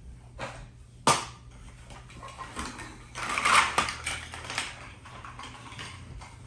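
Clatter and knocks of hard objects being handled, with a sharp knock about a second in and a busier stretch of clatter around three and a half seconds in.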